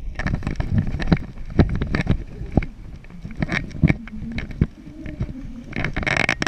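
Abu Garcia round baitcasting reel being cranked to retrieve a spinner, giving an irregular run of clicks and knocks from the reel and the hands on the rod, with some wind on the microphone.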